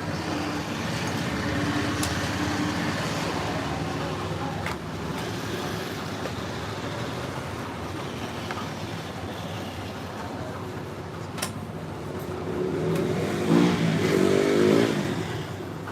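Motor vehicle engines running, with steady background engine noise that swells louder for a couple of seconds near the end.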